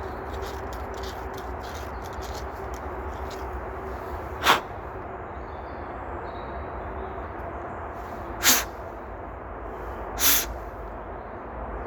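Three short, sharp puffs of breath from a person, the first about four seconds in and the other two close together near the end, over a steady low outdoor background.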